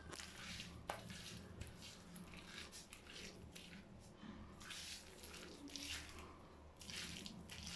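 Faint, irregular wet squishing and rustling of hands working a thick oatmeal and corn-flour conditioner paste through hair, over a low steady hum.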